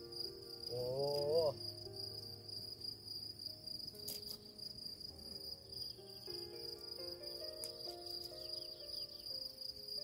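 Crickets chirring in a steady, even high pitch in a mountain meadow at dusk. A brief wavering pitched sound rises about a second in and is the loudest moment.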